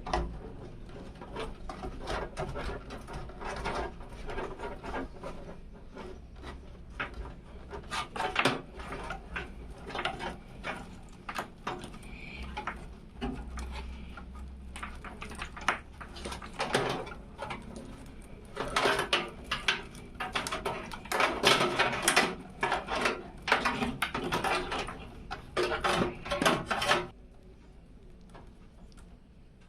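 Irregular clicks, taps and knocks of small hard parts and packaging being handled, coming thick and fast in clusters in the second half and stopping suddenly near the end.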